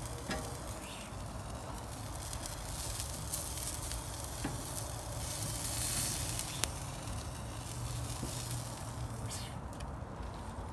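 Wood fire burning under a barbecue grill grate: a steady hiss with scattered crackles and one sharp pop a little past the middle.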